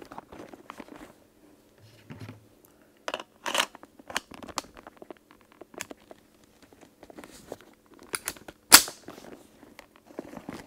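Handling noise from a Luger P08 with its leather-covered holster-stock attached as it is shouldered and aimed: scattered soft clicks, leather creaks and rustles, with one sharper knock about nine seconds in.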